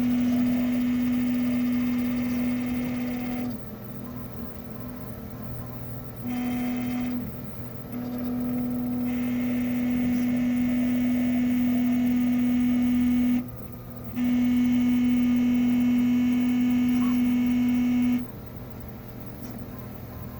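Prusa MK3S 3D printer groaning: a loud, steady low tone of one pitch that runs for a few seconds, cuts off, and starts again, four stretches in all, the last stopping a couple of seconds before the end.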